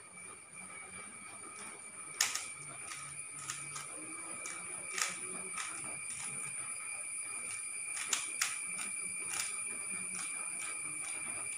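Plastic Rubik's cube being turned by hand during a solve: irregular clicks and clacks of the layers twisting, with a few sharper snaps about 2 s, 5 s and 8 s in.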